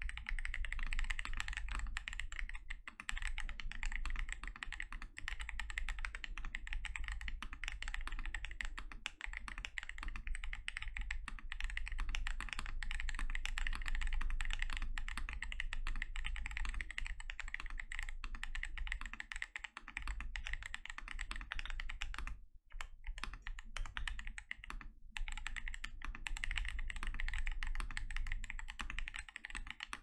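Continuous fast typing on a KBD67 Lite R2 custom mechanical keyboard with lubed Gazzew Boba U4T tactile switches, lubed PC stabilizers and PBT KAT Alpha keycaps, a deep, thocky stream of keystrokes. The typing breaks off for two brief pauses about three-quarters of the way through.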